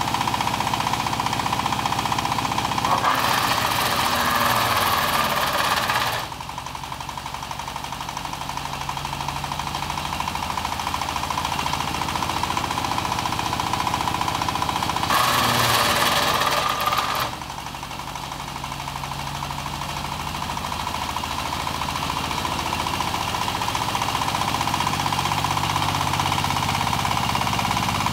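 Wood crusher machine running steadily with a hum and a steady whine. Twice it gives a loud stretch of harsh crushing noise, for about three seconds starting about 3 s in and for about two seconds starting about 15 s in, as wood is fed through it. After each, the machine's sound drops and slowly builds back up.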